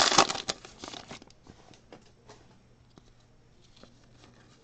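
Foil wrapper of a trading-card pack crinkling and tearing for about the first second, then a few faint clicks of the cards being handled.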